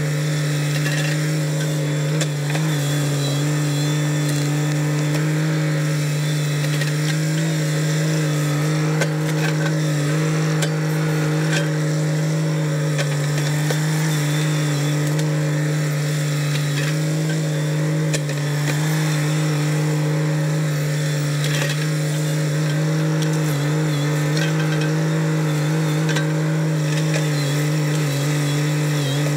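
Kubota BX sub-compact tractor's three-cylinder diesel engine running at a steady, unchanging pitch while the loader's stump bucket digs out and lifts a stump, with a few faint knocks from the bucket and roots.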